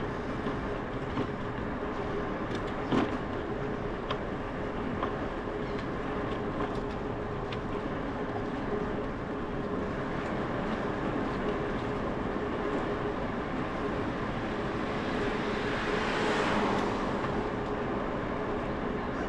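Steady rolling road noise and wind of a bicycle riding along a paved street, with a steady low hum and a few light clicks. About three-quarters of the way through, a broad swell of noise rises and fades.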